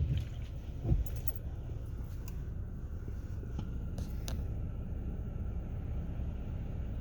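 Steady low rumble inside a car standing in a Laser Wash 4000 touchless automatic car wash, with one thump about a second in and a few faint scattered ticks.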